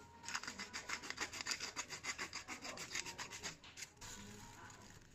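Hand-twisted pepper mill grinding black pepper: a rapid, even run of gritty clicks that stops about a second before the end.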